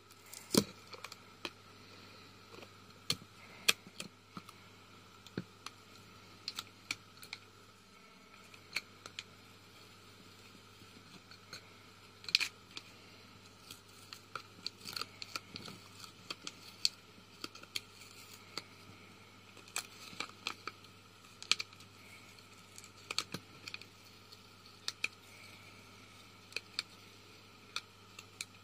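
Fingers and fingernails picking at and peeling the paper label seal off the lid of a glass clip-top jar, making irregular small clicks, taps and scratchy crinkles. A faint steady hum sits underneath.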